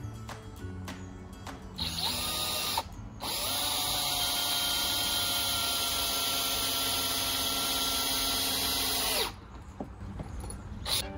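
Electric drill running: a short burst about two seconds in, then one steady run of about six seconds that winds up at the start and winds down when it stops.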